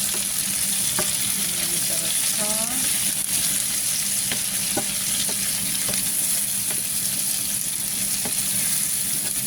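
Sliced onions, red and orange peppers and mushrooms sizzling steadily in a frying pan over low heat, with a few light clicks scattered through.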